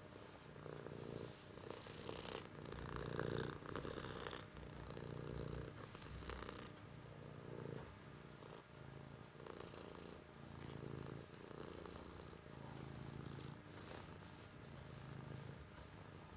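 Domestic cat purring steadily while being stroked, the purr swelling and easing in a slow regular rhythm with each breath.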